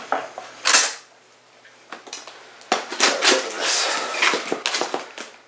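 Large cardboard box being handled and turned on a countertop: a sharp knock under a second in, then a couple of seconds of scraping and rubbing of cardboard against the counter.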